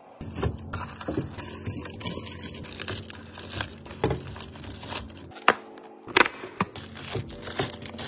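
Plastic wrappers on snack cakes crinkling as the wrapped cakes are handled and set down one after another in a clear plastic bin, with small clicks and taps throughout.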